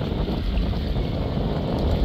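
Wind buffeting the microphone outdoors: a steady low rumble with an even hiss over it.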